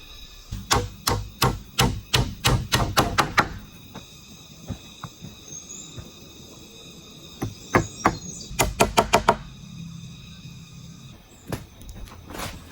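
Tool strikes on bamboo: a run of about ten quick knocks, roughly three a second, then a pause and a second faster run of knocks near the two-thirds mark.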